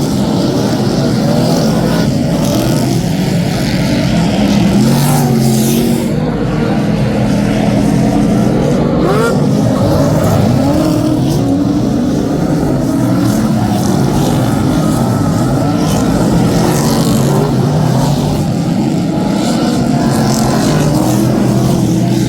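Several V8-engined superstock race cars racing together, their engines revving up and falling back over and over.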